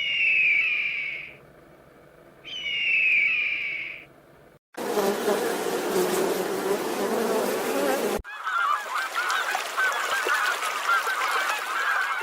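Animal sounds from three cut-together clips: two short calls, each falling in pitch, about a second apart; then a few seconds of dense buzzing; then a steady mass of quick wavering chirps.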